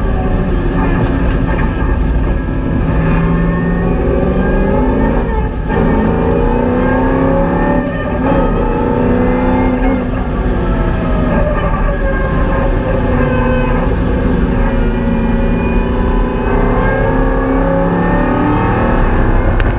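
The 5.7-litre LS1 V8 of a VY Commodore track car, heard from inside the cabin, its revs rising and falling through gear changes, with a short break in the sound about five and a half seconds in.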